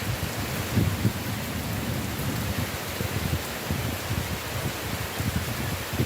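Heavy rain falling steadily in a continuous hiss, with a low rolling rumble of thunder underneath.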